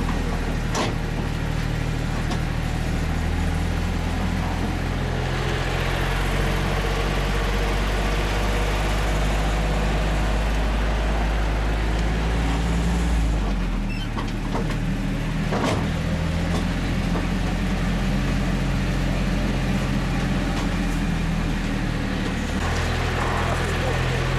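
A motor vehicle's engine running steadily, a low hum with road noise, heard while riding. There are a few short knocks, one about a second in and another about two-thirds of the way through.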